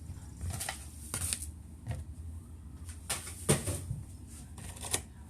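Things being handled and set down while tidying up after cooking: scattered light knocks and clatter, about half a dozen, the loudest about three and a half seconds in, over a low steady hum.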